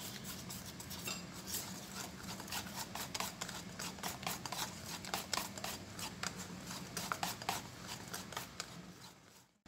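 Wire whisk beating cake batter by hand in a stainless steel bowl: quick, irregular clicks and scrapes of the wires against the metal. It fades out just before the end.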